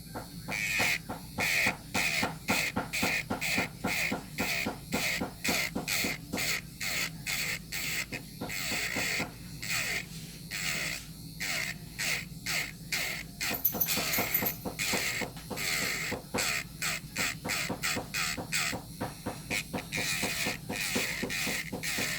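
Electric nail drill running steadily while its bit files gel polish off a fingernail. The filing comes in short scraping passes, about two a second.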